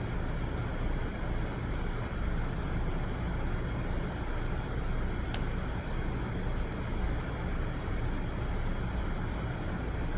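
Steady low background rumble and hiss with no clear source, with one short click about five seconds in.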